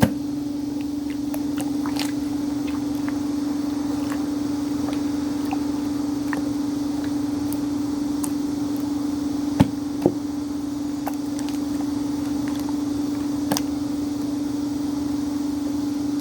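Clear orange slime being squeezed and poked, giving scattered small clicks and pops, two of them louder about halfway through, over a steady low hum.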